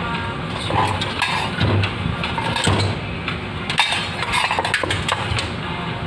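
Metal wiring and parts of an old electric stove rattling and clinking as they are handled and pulled out, in a string of short knocks over a steady background noise.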